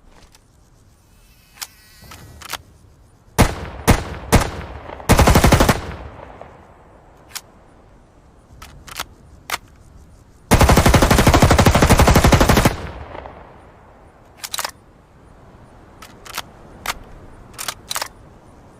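M2 carbine, a select-fire .30 Carbine rifle, firing: three single shots, a short automatic burst, then a longer automatic burst of about two seconds, with quieter clicks and cracks in between.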